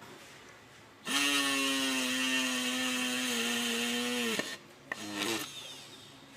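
Small 12 V DC motor of a homemade hand drill switched on, running with a steady whine for about three seconds, its pitch dipping slightly before it cuts off; a brief second run follows about half a second later.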